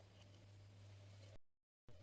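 Near silence: a steady low hum with faint hiss, cut off by a brief total dropout to dead silence about a second and a half in.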